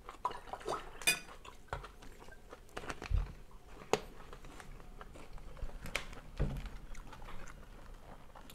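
Spoons and plates clinking at a meal: scattered light clicks and taps, the sharpest about a second in and again about four seconds in, with a couple of dull knocks.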